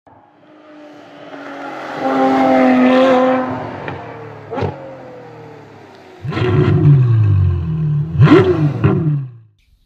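Intro sound effect of a car engine revving: the note swells over the first three seconds and then glides down, and a second loud burst starts suddenly about six seconds in with a falling note. Two sharp hits come about four and a half and eight and a half seconds in, and the sound stops just before the end.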